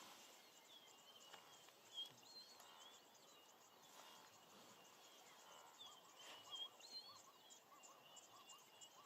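Faint birdsong over quiet natural ambience: short, repeated warbling chirps throughout, with a run of lower quick chirps in the second half.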